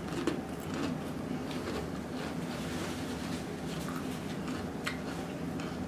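Close-miked chewing of a queso-dipped tortilla chip: a few irregular crunches and mouth clicks over a steady background hum.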